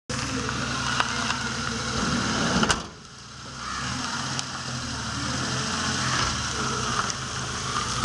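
Small Maruti Omni van's engine running as the van moves off, with a sharp knock a little under three seconds in.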